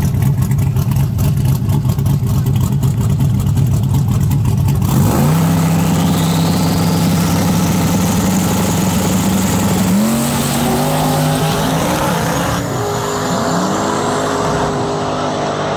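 Fox-body Ford Mustang drag car's engine: a rough, pulsing low rumble for the first few seconds, then the revs jump up and hold steady. About ten seconds in it runs off down the track, its pitch climbing and dropping back several times as it shifts up through the gears, fading slightly as it pulls away.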